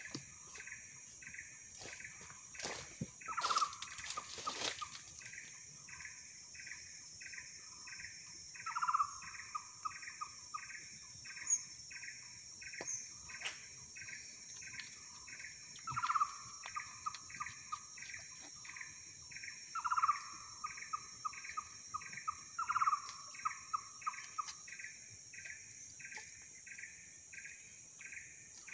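Outdoor animal chorus: a steady high-pitched insect drone and a regular chirping pulse about three times a second. Over these, a call with a sharp start trailing into a fast rattling trill repeats five times.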